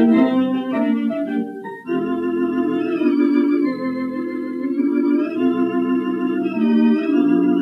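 Wurlitzer theatre organ playing solo, held chords with a wavering tremolo, in an old radio-broadcast recording. There is a brief break just under two seconds in before the next chord sounds.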